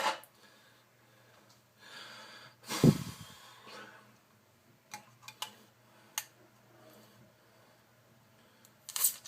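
A man breathing heavily after chugging a beer, with a loud breathy blast about three seconds in. A few faint clicks follow.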